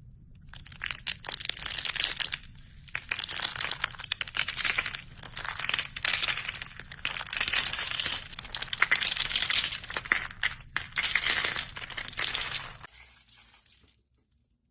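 Slime being squished and kneaded by hand, making a dense crackling and popping in repeated waves. It stops about a second and a half before the end.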